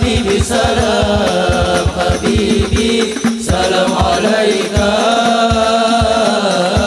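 Male voices singing a sholawat devotional chant together over a quick, steady beat of hand drums.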